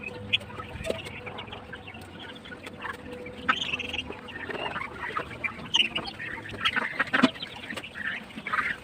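A flock of ducks and chickens calling while they crowd around freshly spread feed, with scattered short clicks and knocks among the calls.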